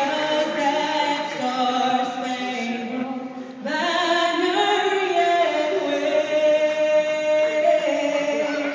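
National anthem sung over an arena's sound system, in long held notes, with a short break between phrases about three and a half seconds in.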